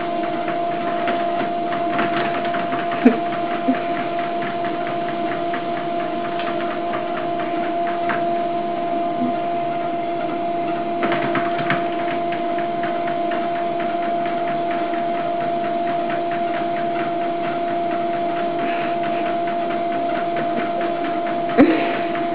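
A machine running steadily with a constant two-note hum and a fast, even ticking, with a couple of sharp knocks about three seconds in and near the end.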